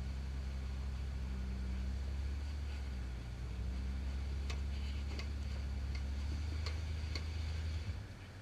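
Rock-crawler buggy's engine running with a steady low drone as it pulls up a rock ledge, dropping off suddenly near the end. A handful of sharp clicks come through in the middle.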